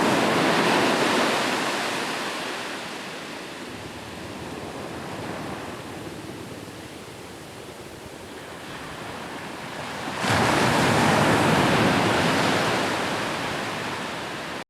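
Ocean waves breaking: a wash of surf that dies away over the first few seconds, softer surf for several seconds, then another wave crashing suddenly about ten seconds in and slowly receding.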